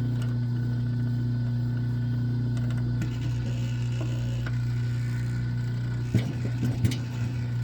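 Steady low hum of a running motor, with a few knocks and rattles of thick copper cable being handled and fed through a wire stripper about six seconds in.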